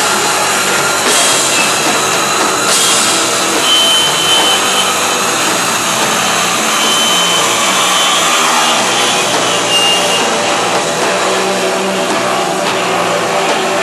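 Live band playing loud, heavily distorted music: a steady, dense wall of noise with faint held tones.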